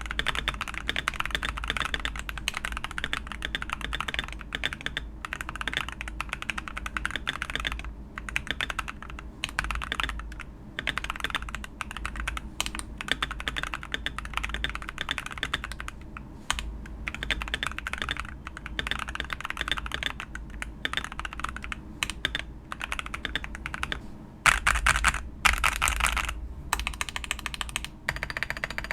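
Mechanical keyboard typing test: Akko Creamy Purple Pro tactile switches in a tape-modded Royal Kludge RK98 with retuned stabilizers, keys struck in a dense, continuous run of clicks, with a louder stretch about 25 seconds in. The switches give a mid-range sound, neither thocky nor clacky, creamy-ish.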